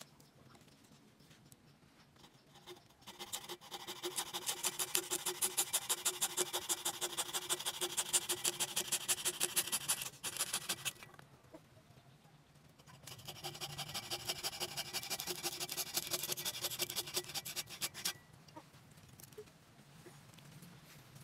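Hacksaw cutting into a forked tree branch to shape a slingshot frame, in two bouts of quick, even back-and-forth strokes with a pause of a couple of seconds between them.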